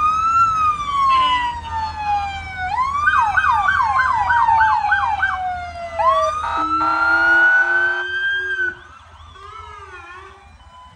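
Emergency vehicle sirens sounding in a parade: slow rising and falling wails, switching about three seconds in to a fast yelp of about eight quick sweeps. A long steady horn blast comes in around six seconds and lasts about two seconds. The sound then drops sharply, leaving fainter siren sweeps.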